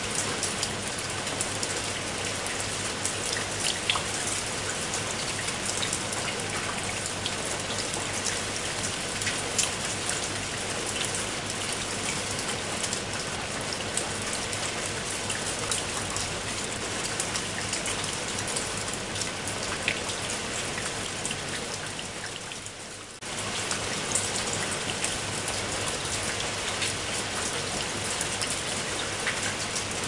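Steady rain falling, with many individual drops splashing close by. About 22 seconds in, the rain fades slightly, then cuts back in suddenly at full strength.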